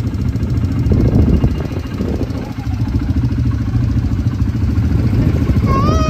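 Quad bike (ATV) engine running steadily at low revs, close by.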